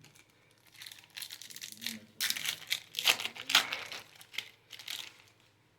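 Foil booster-pack wrapper crinkling and tearing open in the hands, a run of crackly rustles that stops shortly before the end.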